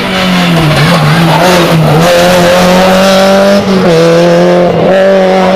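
Rally car engine held at high revs at a nearly steady pitch, dipping briefly twice.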